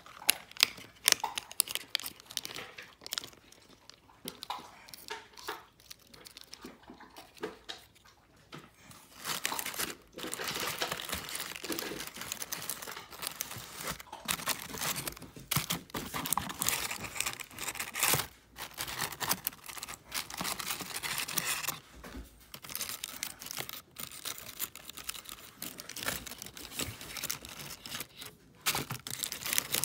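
Plastic takeout bag and food wrappers crinkling and tearing as they are handled and pulled open, with sharp clicks in the first few seconds and a longer, louder stretch of crackling in the middle.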